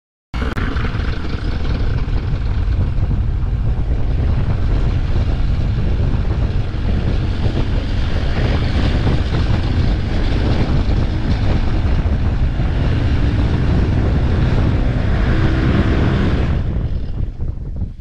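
Vittorazi Moster 185 single-cylinder two-stroke paramotor engine and propeller running steadily in a ground test. Its propeller is mounted on a quick-release hub, and the engine runs with no change noticed. Near the end the engine cuts and the sound dies away as the propeller winds down.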